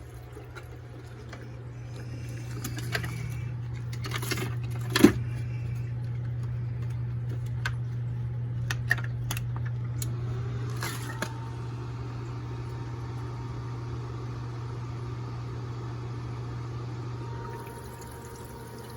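Electrolyte fizzing and bubbling in a homemade electrochemical machining cell as welding current passes between a stainless steel tube electrode and a tungsten carbide blank, over a steady low hum. There are a few sharp clicks in the first half, and the bubbling noise fades near the end.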